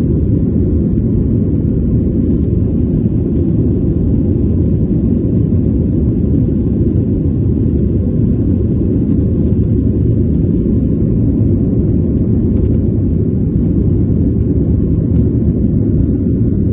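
Steady low rumble of a Boeing 737-900's CFM56-7B jet engines and rushing air, heard from inside the passenger cabin as the airliner takes off.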